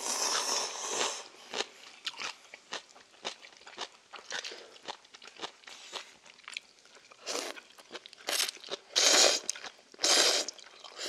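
Ramen noodles slurped up from the bowl, with chewing and small clicks in between. Loud slurps come at the start and twice near the end.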